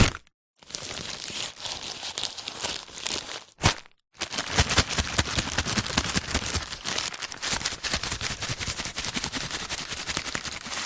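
Brown paper bag being crinkled and crumpled by hand: dense, rapid paper crackling, with a sharp crack just before four seconds in, then a long stretch of continuous crumpling.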